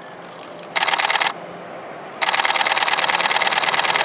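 A camera shutter firing in rapid burst mode, many evenly spaced clicks: one short burst about a second in, then a longer continuous burst from just past two seconds on.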